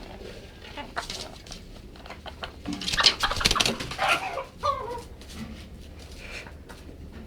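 Chicken calling: a loud burst of squawking calls about three seconds in, ending in a couple of falling notes, with scattered small clicks around it.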